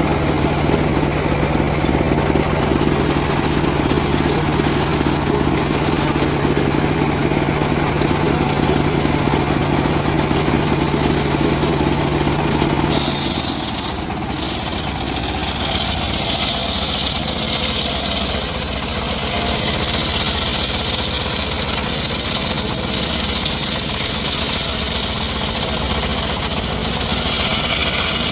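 Engine-driven wood saw running. About halfway through, the steady low hum gives way to a higher hissing noise.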